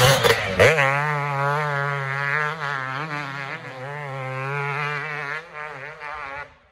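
KTM 250 SX two-stroke motocross engine with a PPS exhaust, loud as the bike passes close, then buzzing away with its pitch rising and falling as the rider works the throttle. It fades sharply near the end.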